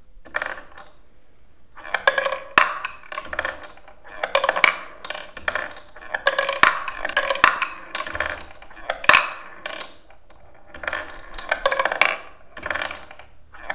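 11 mm steel ball bearings launched one after another by a small lever, rolling up a wooden skee-ball lane and clattering into the wooden target rings, a run of sharp clicks and clinks with a short ring after each.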